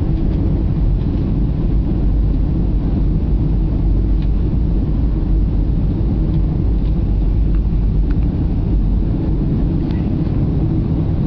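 Steady, even rumble of jet-airliner cabin noise, engines and airflow, heard from inside the passenger cabin of a Southwest Boeing 737 during its descent on approach.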